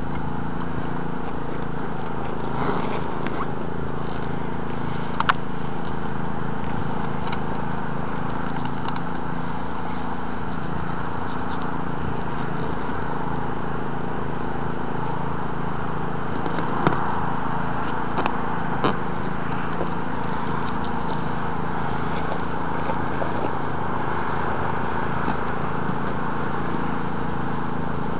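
Steady hum of rooftop ventilation fans running, a drone with several fixed pitches over an airy hiss, with a few light knocks scattered through it.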